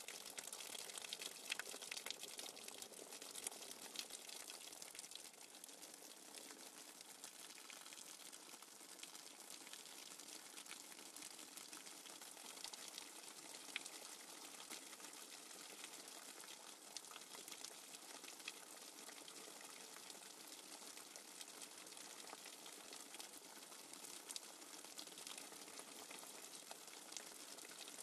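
Faint nature-sounds background track: a steady watery hiss speckled with fine crackles.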